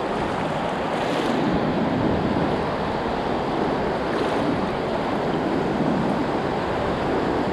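Steady rush of small surf waves washing in shallow water.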